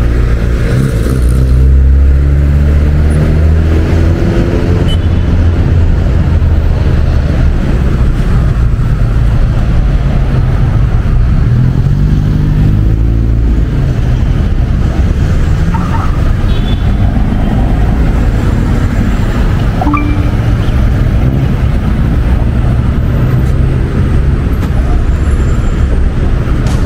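A motor vehicle's engine running loud and low, rising in pitch as it accelerates at about a second in and again at about twelve seconds in, with road traffic around it.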